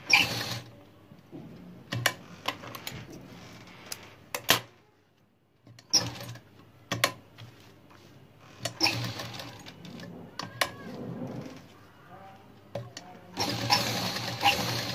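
Uppal domestic sewing machine stitching through fabric in several short runs, the longest and loudest near the end. Sharp clicks come between the runs as the fabric and machine are handled.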